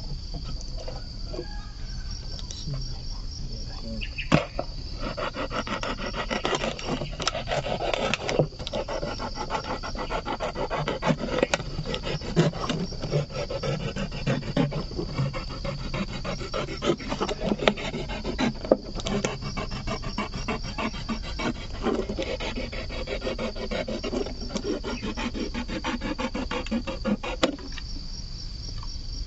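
Kitchen knife sawing through the thin wall of a large plastic cooking-oil bottle in quick scraping strokes, from about four seconds in until just before the end. A steady high insect sound runs underneath.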